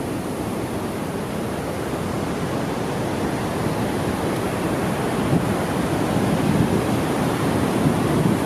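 Steady rushing roar of a large waterfall and its rapids, growing a little louder, with some wind in the microphone.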